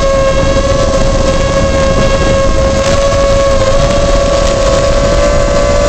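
Small FPV quadcopter's motors humming steadily in flight: a loud, steady whine that wavers slightly in pitch, over a bed of hiss.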